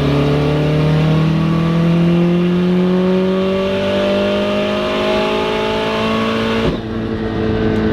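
Turbocharged Subaru STI flat-four engine under a full-throttle pull, its pitch climbing steadily to about 7,000 rpm, then dropping suddenly about a second before the end as the throttle is lifted. It pulls cleanly with no misfire, now running one-step-colder spark plugs.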